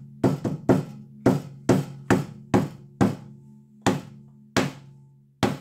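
Tack hammer striking wet acrylic paint on a small canvas panel: about a dozen sharp blows at an uneven pace, roughly two a second.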